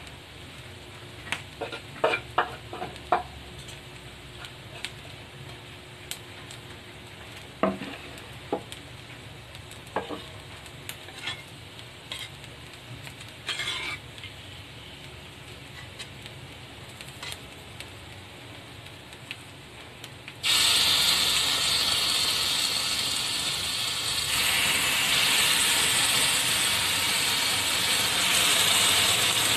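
Scattered clinks and knocks of utensils and cookware, then, about two-thirds of the way in, a loud steady sizzle that starts suddenly as sauce is poured onto a hot cast-iron sizzling plate.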